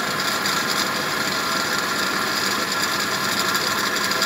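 Electric pedestal fan running steadily close by, a continuous mechanical whirr.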